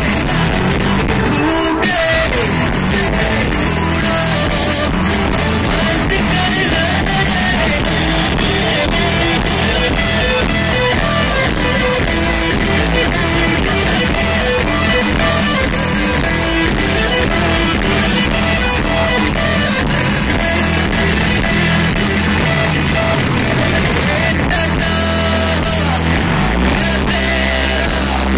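A rock band playing live through a concert PA, with electric guitars, bass guitar, drums and a singer, loud and without a break.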